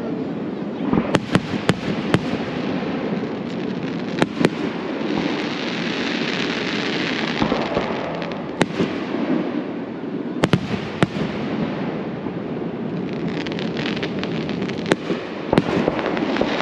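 Aerial fireworks shells bursting with sharp bangs at irregular intervals, several in quick succession a second or two in and again around ten seconds in. Crackling and hissing stars fill the gaps between bursts.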